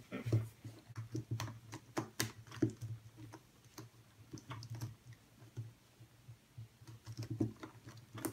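Redi Cube being turned quickly by hand: rapid, irregular plastic clicks as its corners are twisted, coming in quick runs.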